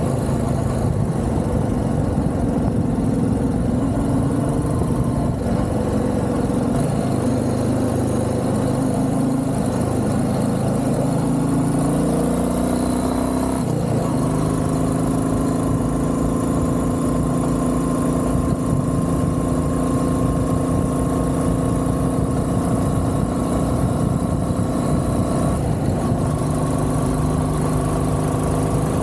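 Royal Enfield Classic 350's air-cooled single-cylinder engine running under way, heard close up. Its pitch climbs for several seconds as it accelerates, then drops at a gear change about halfway through, with another brief break near the end.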